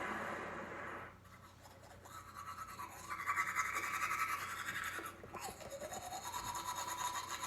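Teeth being brushed with a toothbrush: fast back-and-forth scrubbing strokes, steady from about two seconds in, after a short hiss in the first second.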